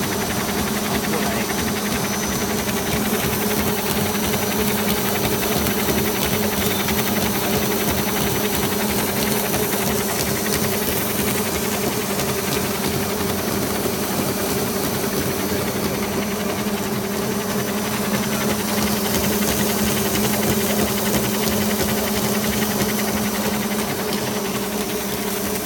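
Small film slitting machine running steadily while it slits and rewinds film: a constant hum with a hiss over it.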